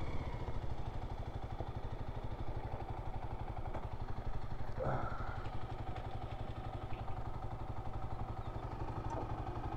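Single-cylinder Kawasaki KLX dual-sport motorcycle engine running steadily.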